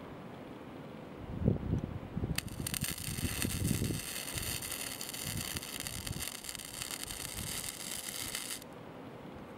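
Wire-feed welding arc laying a tack weld on steel flat bar over the seam of a shipping-container roof: a steady crackling hiss that starts suddenly and cuts off after about six seconds. Before it, a few low thumps and a rumble.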